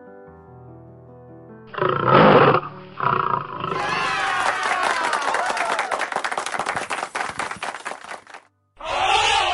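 A lion roar sound effect about two seconds in, over light cartoon background music, followed by several seconds of a noisy celebratory sound effect marking a correct answer.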